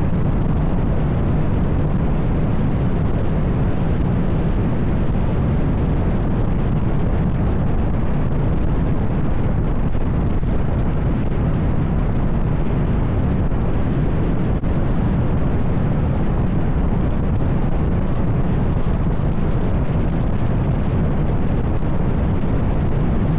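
Steady wind rush over the microphone mixed with the low drone of a Yamaha TMAX 560 maxi-scooter riding at speed.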